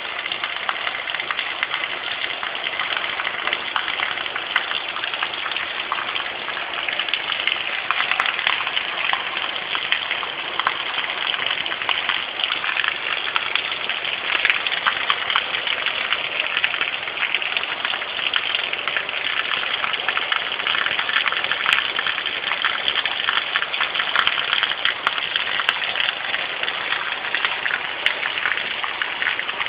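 Heavy rain pouring down steadily: a dense, even hiss of drops with a fine crackle of individual impacts.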